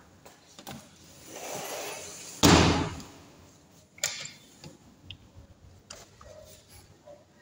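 Sliding glass patio door rolling along its track: a rushing rumble builds for about a second, then the door hits with a loud knock about two and a half seconds in, followed by a few light clicks.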